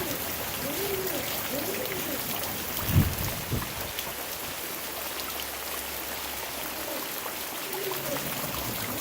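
Steady rain falling, an even hiss, with one low thump about three seconds in. Near the start and the end, a bird's low cooing notes repeat.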